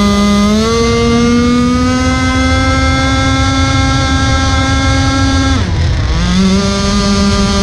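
Gas engine of a 4-foot RC speed boat running at high revs, close up from on board, with a high, steady pitch. The pitch rises a little about half a second in, then drops sharply for under a second about three-quarters of the way through and climbs straight back as the revs come back up.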